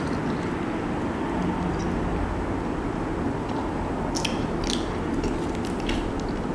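Close-up eating sounds: wet sucking, lip smacks and chewing as sauce-covered boiled shrimp and fingers go to the mouth, with a few sharp wet clicks around four to five seconds in. A steady background hiss runs underneath.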